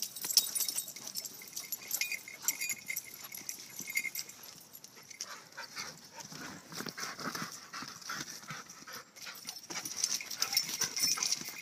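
Dogs running and playing close by on a dirt forest trail: quick, irregular scuffling paw falls and footsteps, mixed with the dogs' own sounds.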